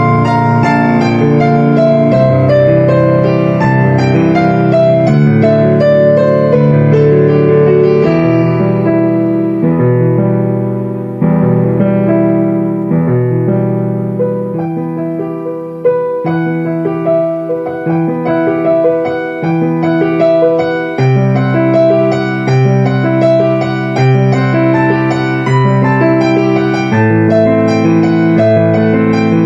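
Piano music playing slow, sustained chords. It thins out and softens for several seconds around the middle, then fills out again.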